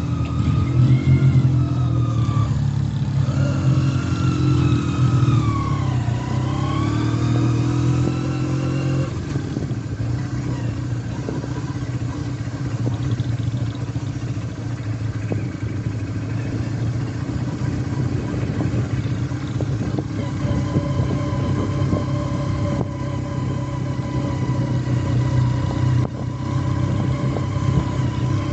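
Motorcycle engine running while riding, its pitch rising and falling with the throttle in the first nine seconds, with a deep dip about six seconds in, then holding steadier.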